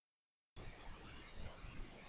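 Dead silence, then faint steady microphone hiss and room tone that cuts in suddenly about half a second in.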